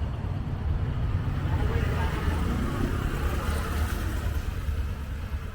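A road vehicle's engine running nearby: a low, uneven rumble.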